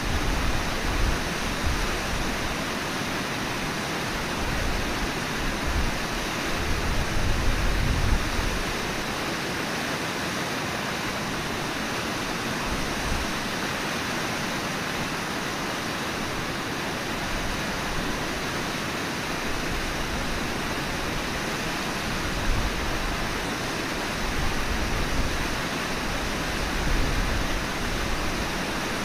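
Steady rush of the Brooks River's flowing water, with low gusts of wind rumbling on the microphone in the first several seconds and again near the end.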